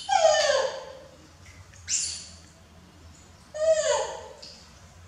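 Baby macaque giving two falling, plaintive coo calls, one near the start and one past the middle, with a brief hiss between them.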